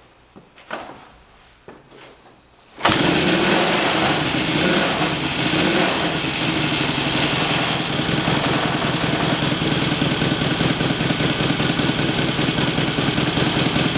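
1954 Victoria Bergmeister V35's V-twin engine being started from cold with the choke on. After a few faint knocks it catches suddenly, nearly three seconds in, and then runs steadily.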